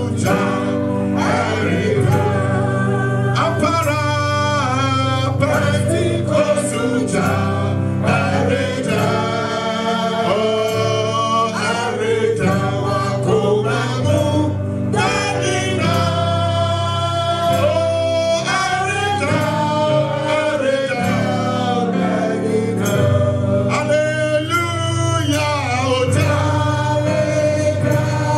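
Gospel worship music: voices singing together over a continuous instrumental backing.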